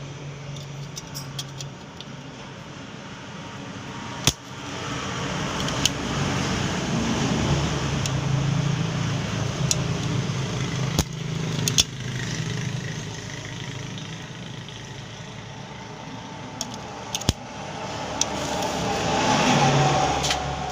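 Homemade welding machine running with a steady low hum under a hiss, with a few sharp clicks.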